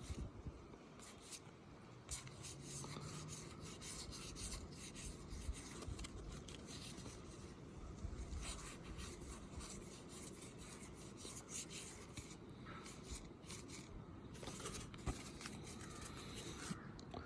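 Trading cards being handled and flipped through by hand: soft, continual rubbing and light scratchy ticks of card stock sliding against card stock.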